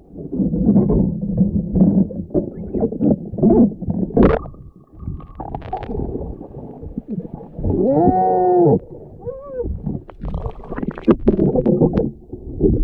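Water sloshing and bubbling against an underwater camera as a spearfishing diver swims up through a shallow reef to the surface, with many small knocks. About eight seconds in there is a short, muffled pitched sound that rises and falls, and a smaller one follows it.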